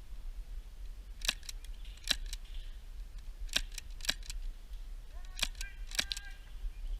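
Airsoft guns firing: sharp snapping shots, mostly in quick pairs, about six times at irregular spacing.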